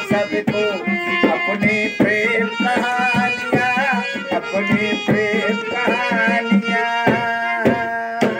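Harmonium holding chords and melody over tabla strokes in a steady rhythm, ending on a loud final stroke near the end.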